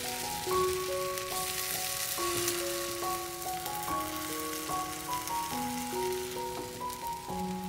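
Food sizzling as it fries in a pan: a steady hiss, under background music with a simple melody.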